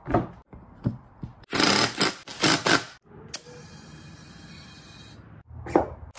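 Workshop sounds of small pneumatic tyres being fitted. A few knocks are followed by a run of loud, noisy handling bursts. After a click, a steady hiss of about two seconds as air goes into the tyre through a clip-on air chuck, and a knock near the end.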